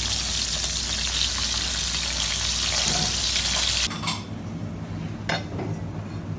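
Batter-coated, skewered garfish rolls sizzling in hot frying oil: a loud, steady hiss that cuts off abruptly about four seconds in. After it comes a quieter low hum with a few faint clicks.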